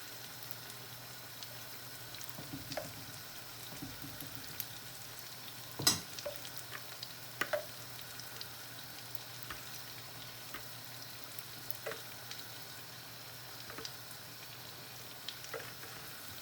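Pan of seafood paella sizzling steadily, with scattered light clicks and two sharper knocks about six and seven and a half seconds in.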